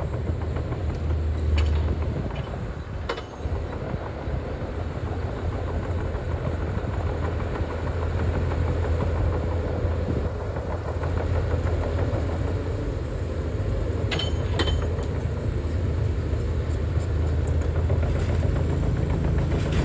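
Heavy diesel earthmoving machine running with a steady low rumble. A few sharp metallic clanks come through: two in the first few seconds and a cluster about fourteen seconds in.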